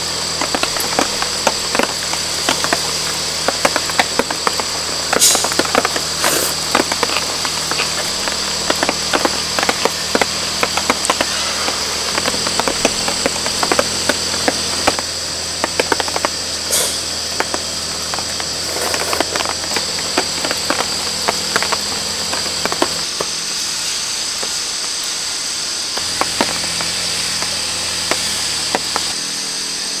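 Rain dripping and pattering irregularly on a camping tarp, over a steady high insect drone from the surrounding forest.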